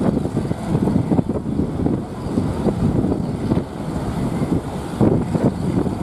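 A wooden fishing boat's engine running as it pushes through the surf, mixed with breaking waves and wind buffeting the microphone in an uneven low rumble.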